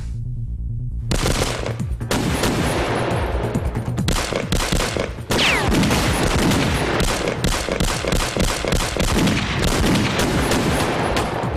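Rapid, crowded gunfire from a rifle and pistols in a staged shootout, starting about a second in and running on in quick volleys. A falling whine cuts through about five and a half seconds in, over steady background music.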